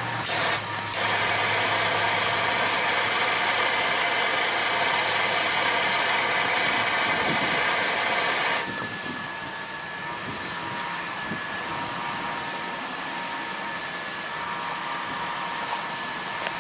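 MAP-Pro gas torch burning with a loud, steady hiss, heating seized lower-unit bolts to free them; the hiss starts about a second in and drops suddenly to a quieter hiss with a faint steady high tone about eight seconds in.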